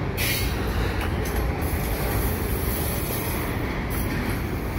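A string of double-stack container cars rolling past on the rails: a steady low rumble with a high hiss over it that fades out near the end.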